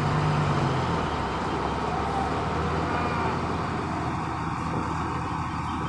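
A vehicle or machine engine running steadily amid road-works and traffic noise, with a low hum that is strongest in the first second.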